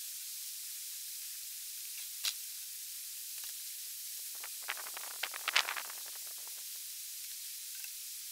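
Steady hiss of a rushing creek, with a single light knock about two seconds in and a cluster of soft knocks, rustles and footsteps on the forest floor around the middle.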